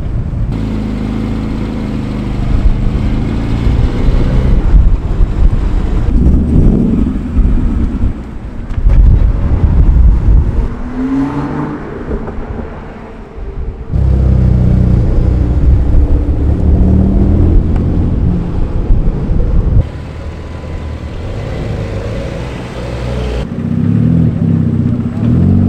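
Several cars driving slowly past one after another, engines running at low revs, with abrupt cuts between them. One engine revs up briefly around the middle.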